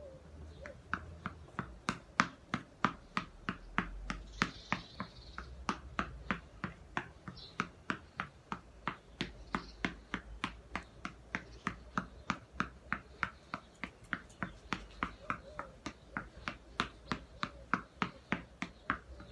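Reflex ball, a small ball on an elastic cord from a headband, punched over and over with bare fists: a steady run of sharp smacks, about three a second.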